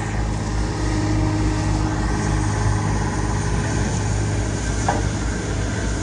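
Diesel engine of a 2014 Ammann ARX26 tandem roller running steadily at a constant speed while the roller drives away.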